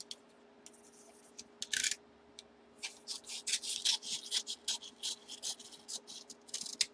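Paper envelope and card packaging rustling and scraping as it is handled and torn open: one short burst about two seconds in, then a quick run of short, sharp scrapes through the second half.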